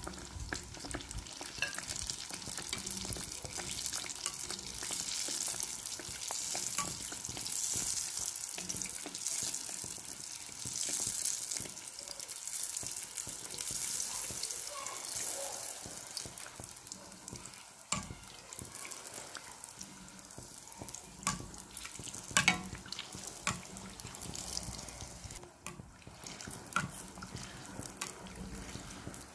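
A piece of sesame-coated bread dough deep-frying in hot oil in a steel pot: a steady sizzling hiss with crackles, louder through the first half. A few sharp clicks stand out in the second half, the loudest about 22 seconds in.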